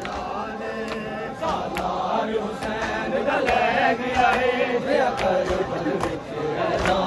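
Men's voices chanting a Punjabi noha together in a mourning chorus, with sharp slaps of hands on chests in matam breaking through now and then.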